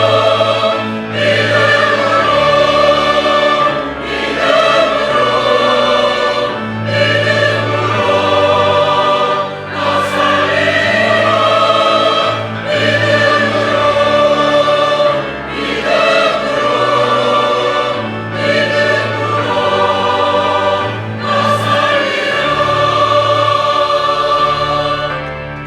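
A church choir singing a sacred anthem in sustained, legato phrases over held low accompaniment notes, with short breaths between phrases.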